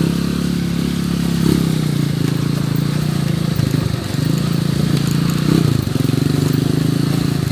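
Motorcycle engine running at low, steady riding speed, its pitch dipping and recovering a few times.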